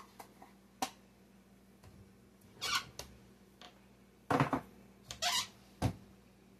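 Kitchen handling sounds while baking powder is measured out: a few sharp taps and clicks with short squeaky scrapes in between, the loudest about two-thirds of the way through.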